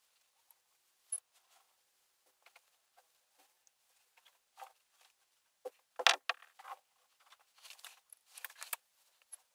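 Whiteboard marker drawing on a whiteboard: short, irregular strokes, the loudest about six seconds in and a quick run of them near the end.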